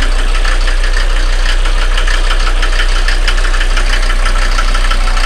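1990 Mercedes-Benz 300D 2.5 Turbo's five-cylinder turbo diesel idling steadily with diesel clatter shortly after a cold start, settled to an even idle.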